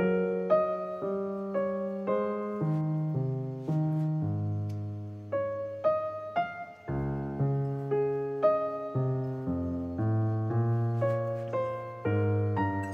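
Background music: a keyboard with a piano sound plays a simple melody, one note about every half second.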